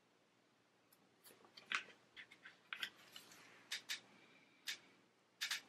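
Faint, irregular crisp clicks and crackles of a paper planner-sticker sheet being handled as a small sticker is freed from it, starting about a second in.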